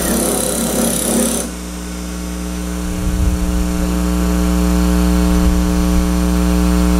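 Wood lathe running with a steady motor hum. A hissing noise stops suddenly about a second and a half in, and the hum then grows louder over the next few seconds.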